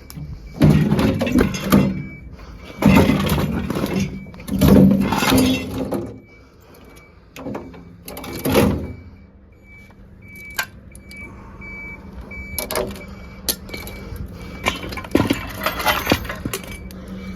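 Metal parts of a combi boiler being pulled apart and handled: four bursts of scraping and rattling in the first half, then several sharp single clanks.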